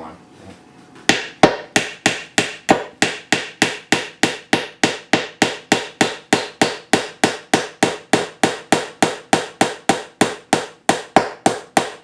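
Claw hammer striking a nail into a wooden birdhouse panel, a steady run of blows at about three a second that begins about a second in.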